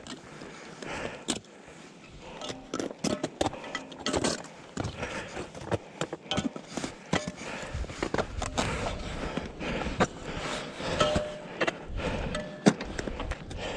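Irregular clinks, knocks and scrapes of climbing gear and boots against summit rock close to a body-worn camera, with a few short metallic rings. Low wind rumble on the microphone in the second half.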